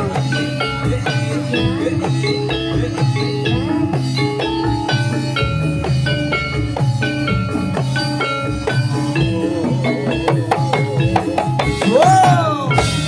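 Live Javanese gamelan music for a Jathilan dance, played through a loud sound system: a quick run of struck metallophone notes over a steady hand-drum pulse, with a rising-and-falling sliding tone near the end.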